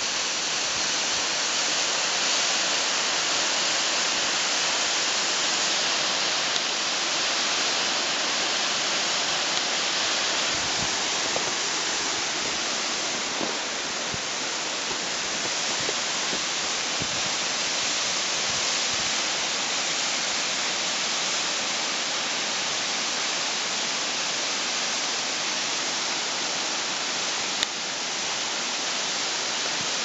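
Steady rushing of a tall waterfall, an even wash of falling-water noise.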